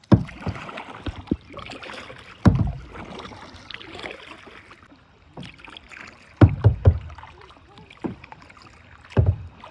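Kayak paddling: paddle blades splashing through the water at an uneven rhythm, with several heavy thumps, the loudest about two and a half seconds in, around six and a half to seven seconds in, and near the end.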